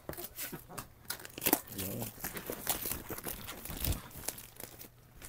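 Plastic wrapping on a new foam mattress crinkling and rustling as it is handled and pulled at, in many uneven crackles.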